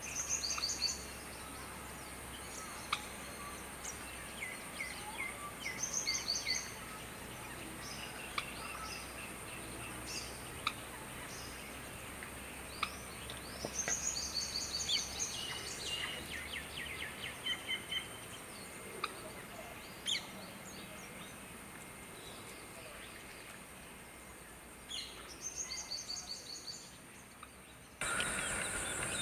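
Birds calling in short runs of rapid, high chirps, with a few lower note series, over a thin steady high-pitched hiss. The background becomes abruptly louder near the end.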